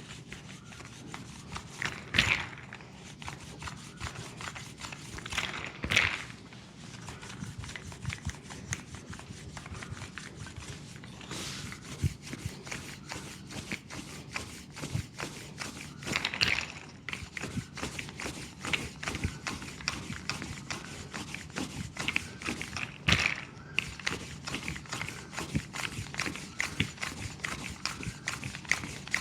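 Leg massage: a fast, steady run of taps and strikes on the leg, with four louder smacks spread through it.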